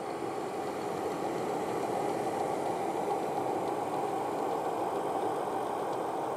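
Elmo GS1200 Super 8 film projector running: a steady mechanical whir of its motor and film transport, swelling up at first and then holding level.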